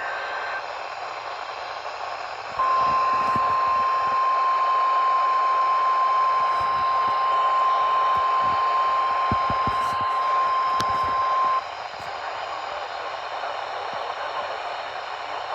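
NOAA Weather Radio receiver over a steady static hiss: a brief high data tone at the very start, the end of the SAME alert header, then the 1050 Hz warning alarm tone held steady for about nine seconds before it cuts off. The alarm tone signals that a weather warning message follows.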